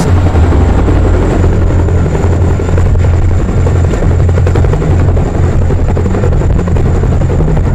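Chinook tandem-rotor helicopter hovering low, its rotors and engines running loud and steady.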